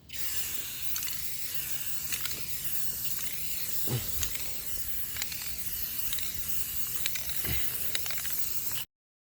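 Paint being sprayed onto a freshly primed steel welding cart: a steady hiss with a couple of soft knocks, cutting off suddenly near the end.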